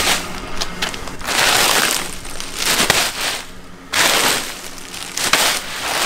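A bag of ice cubes hitting the asphalt about five times, roughly a second apart, each a crunching crash of cubes breaking and shifting inside the plastic bag.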